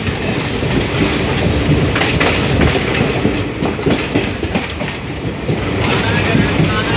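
Train running through a rail yard, heard from aboard: a steady rumble with wheels clattering over rail joints and points. A thin, high wheel squeal comes and goes a few times in the second half.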